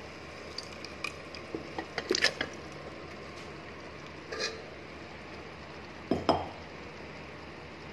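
Steel ladle clinking and scraping against the inside of an open pressure cooker as raw mutton is stirred into frying masala. A handful of scattered knocks over a steady low hiss, the sharpest about two seconds in and again near six.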